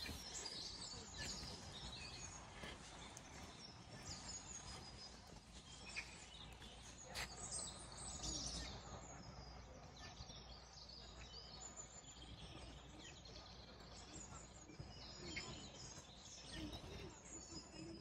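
Faint, scattered bird chirps and calls over a steady low background rumble.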